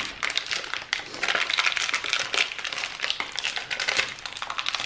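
Foil-and-plastic ink cartridge packaging being torn open and crinkled by hand: a fast, irregular run of crackles and rustles.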